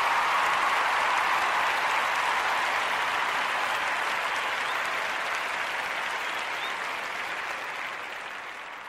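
Crowd applause, steady at first and slowly fading away over the last few seconds.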